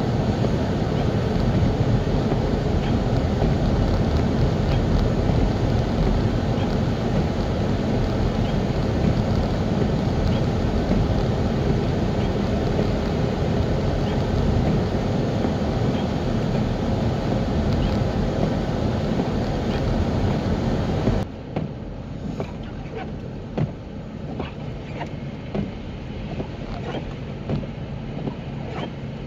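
Car driving on snow-covered roads, a steady rumble of road and engine noise. About 21 seconds in it drops suddenly to a quieter rumble with scattered short clicks and ticks.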